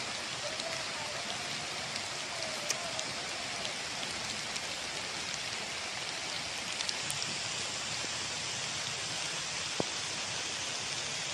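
Steady rain falling, an even hiss throughout, with a few sharp ticks of single drops.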